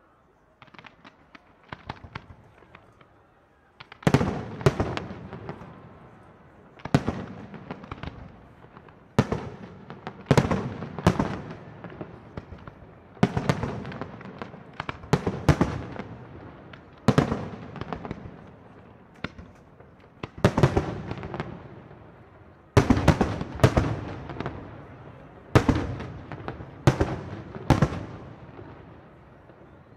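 Aerial firework shells bursting in a large display: a few light crackles and pops, then from about four seconds in a long run of loud bangs, one every second or two, each dying away in an echoing rumble and crackle.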